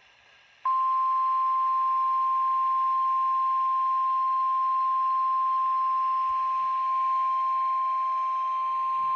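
Emergency Alert System warning alarm tone: one steady, loud pure tone at about 1050 Hz, switching on under a second in and held unchanged, with faint radio hiss beneath it. It signals that a tornado warning is about to be read.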